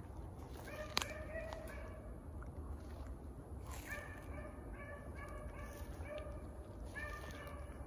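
Beagles barking out of sight, short clipped notes repeated in quick runs of several barks. There is a sharp click about a second in.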